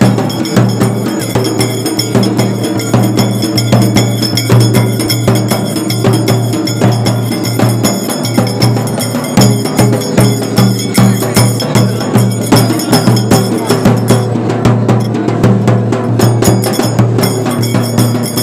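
Live procession drumming: large steel-shelled drums beaten hard in a fast, steady rhythm that runs without a break.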